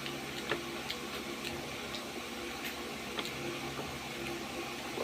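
Close-up eating sounds of someone chewing sticky caramel-coated banana cue: irregular wet mouth clicks and smacks, over a steady low hum.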